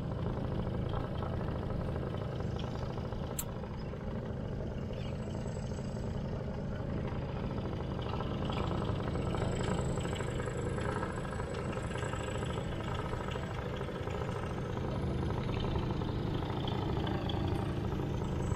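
Quad bike (ATV) engine running steadily as it is ridden slowly over sand, an even low hum that keeps up without a break.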